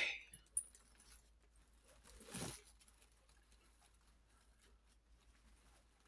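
Quiet room with faint handling noises: a sharp click about half a second in and a brief rustle about two and a half seconds in, as a doll is handled on tissue paper.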